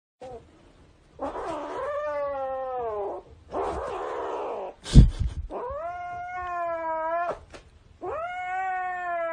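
Kitten yowling in three long drawn-out calls that sag slightly in pitch, with a rough, breathy stretch between the first two. A loud thump comes about five seconds in, the loudest moment.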